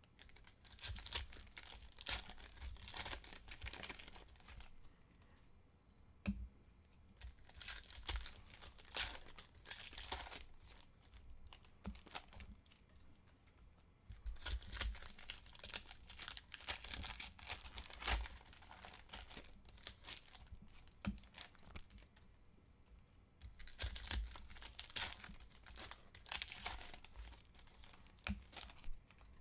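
Football trading-card packs being torn open by hand, their wrappers crinkling, in several spells of a few seconds with quieter gaps between.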